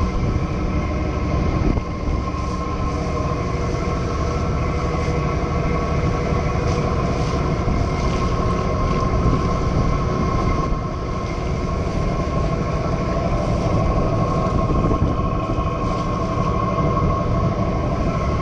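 A boat's engine running steadily: a continuous low rumble with a steady whine over it, mixed with water and wind noise.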